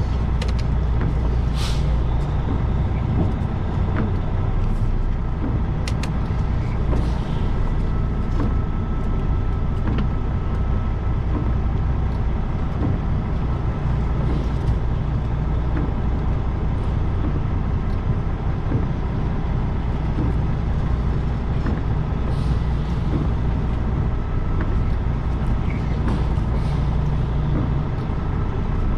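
Semi truck's diesel engine running steadily, heard from inside the cab, with a few short hisses scattered through.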